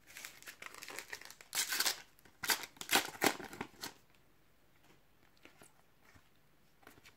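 Foil booster sachet of Panini Adrenalyn XL trading cards being torn open and crinkled, with several sharp ripping rustles as the cards are pulled out; it stops about four seconds in, leaving a few faint card clicks.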